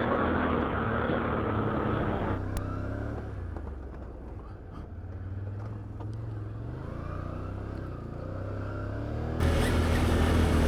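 Can-Am Outlander ATV engine running in low range over rough trail, its pitch rising and falling as the throttle is worked. The sound drops quieter and duller about two seconds in and jumps back louder near the end.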